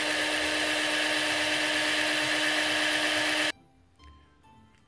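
Cordless power drill running at a steady speed while boring a hole through a strip of wood, a loud, even whine that stops abruptly about three and a half seconds in; faint background music follows.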